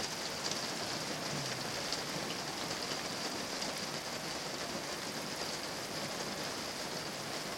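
Steady, even hiss of water, with no separate drops, splashes or knocks standing out.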